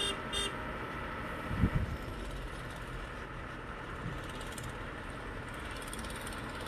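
Heavy diesel engines of an excavator and dump truck running steadily, with a repeated electronic beeping that stops about half a second in and a single low thump just under two seconds in.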